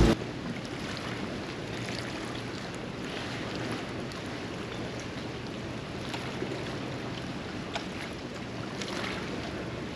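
Ambient sound on a small boat on open water: a steady wash of wind and water, with a faint low hum and a few light clicks.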